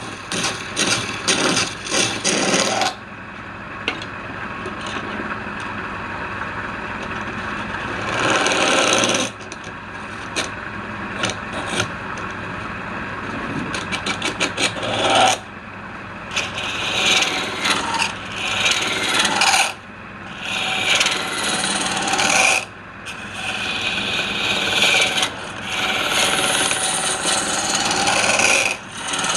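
Woodturning lathe running, with a tool scraping against the spinning wood in repeated rasping passes of a few seconds each.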